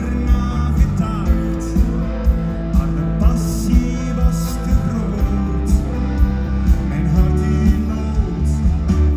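Live rock'n'roll band playing, with electric guitars, bass and drums keeping a steady beat.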